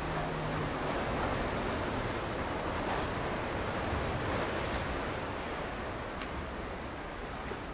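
Steady wash of ocean surf on a rocky shore, with a few faint clicks.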